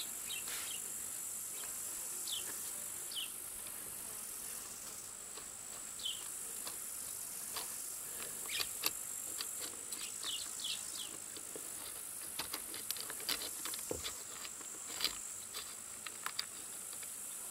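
Steady high-pitched chirring of insects, with scattered light clicks and taps of a hex key working the screws that hold a chainsaw's carburetor, and a few short high chirps.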